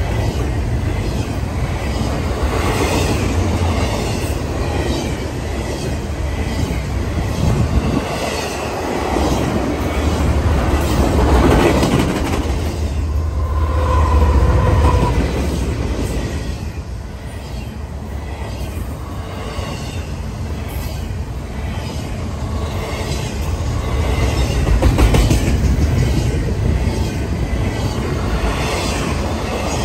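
Double-stack intermodal container train passing close by at speed: a steady rumble with rhythmic clacking of wheels over the rail joints. A mid-train diesel locomotive goes past around the middle, and the low rumble swells with a brief whine.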